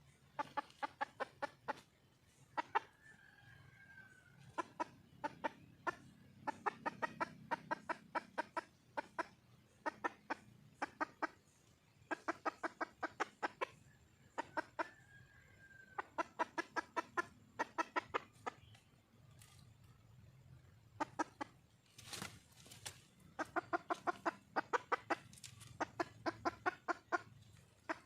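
Junglefowl hen calling: runs of rapid clucks, about eight a second, repeated every couple of seconds, with the odd short drawn-out note and one louder burst about 22 seconds in. It is the wild hen's call to attract a male.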